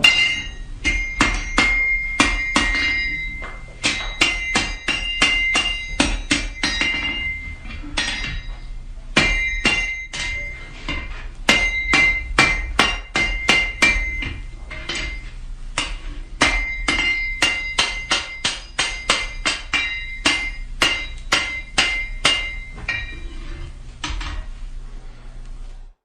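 Blacksmith's hammer striking hot metal on an anvil, in runs of ringing blows a few per second with short pauses between runs. The sound stops abruptly near the end.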